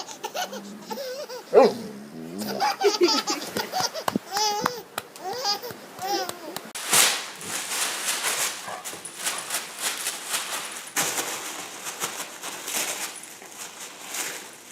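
A baby laughing and squealing in short, high, wavering bursts for about six seconds, then a run of quick, noisy scuffling sounds.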